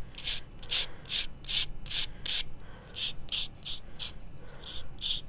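Nail file rasping back and forth on the edge of a small craft cutout, in quick short strokes of about two to three a second.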